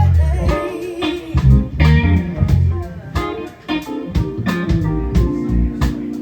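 Live band playing a funky blues-soul groove with electric guitar, bass and drums on a steady beat, between sung lines.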